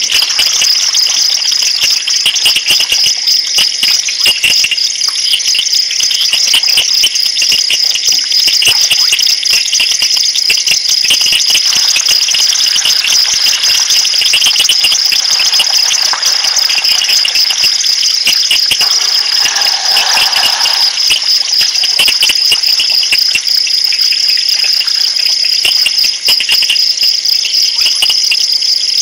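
Dense chorus of night insects, a loud, steady high-pitched trilling made of very fast pulses.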